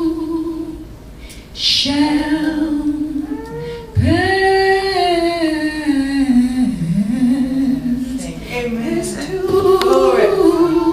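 A woman singing a gospel song unaccompanied into a handheld microphone, holding long notes that slide and bend in pitch, with short breaths between phrases.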